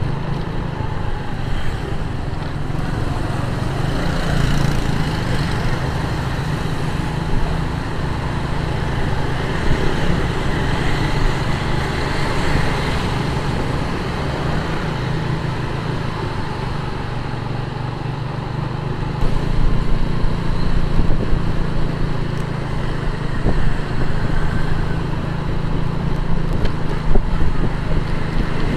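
Motorcycle engine running while riding through city road traffic. It grows louder and more uneven about two-thirds of the way through.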